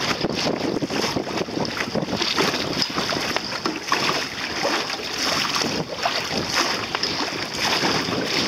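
Water splashing and rushing along the hull of a small boat under way through choppy sea, with wind buffeting the microphone.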